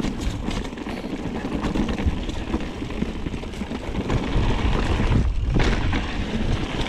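Wind buffeting the microphone during a mountain bike descent, a loud, gusting rumble, with the bike rattling over rough ground. It swells to its loudest about four to six seconds in.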